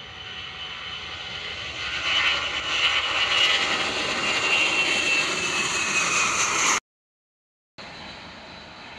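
Boeing C-17 Globemaster III's four turbofan engines at takeoff thrust, growing louder as the jet rolls past, with a high whine that slowly falls in pitch. The sound cuts out abruptly for about a second near the end, then returns quieter as the aircraft climbs away.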